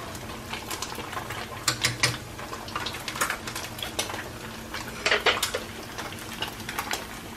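Wooden chopsticks clicking and scraping against a nonstick pan while stirring udon noodles in simmering curry broth, over a steady low sizzle. A louder clack comes about five seconds in.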